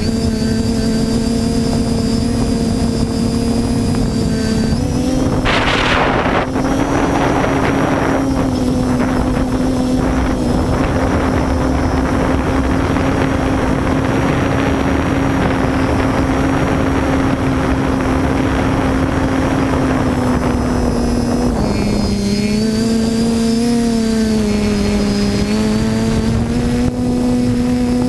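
TBS Discovery quadcopter's electric motors and propellers running with a steady pitched whine. The pitch steps up slightly about five seconds in, with a brief rush of air noise just after. Near the end it dips and wavers with throttle changes.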